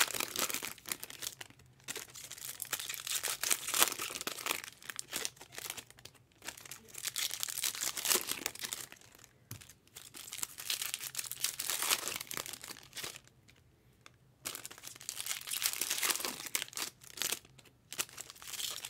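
Foil trading-card pack wrappers crinkling and tearing as packs are ripped open and handled, in irregular bursts with a short lull a bit past the middle.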